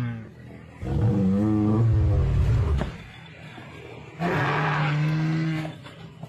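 Two long, low roars from a walking triceratops costume's dinosaur sound effect. The first wavers in pitch and the second is held steady.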